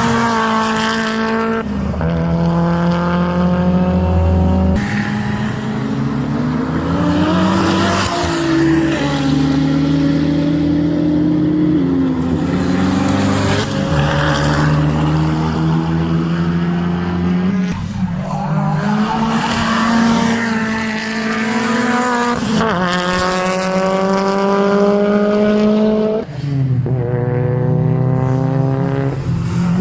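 Race car engine at full throttle on a circuit, its pitch climbing through each gear and dropping sharply at every shift, several times over.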